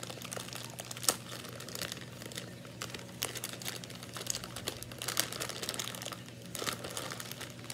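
Plastic candy bag crinkling as it is handled and pulled open, with irregular crackles throughout and one sharp snap about a second in.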